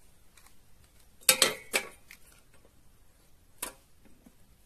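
Metal cookware knocking and clinking: a quick run of sharp clanks with a short ring about a second in, then one more clink later.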